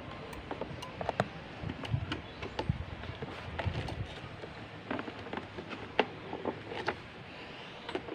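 Handling noise from a camera being adjusted against a riding jacket: irregular clicks, knocks and rubbing over a steady background hiss.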